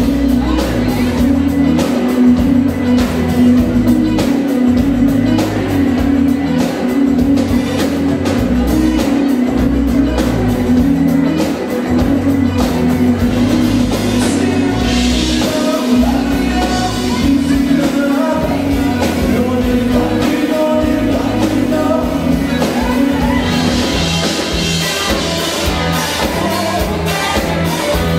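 Live indie rock band playing loud with electric guitars and drums, with a voice singing over them.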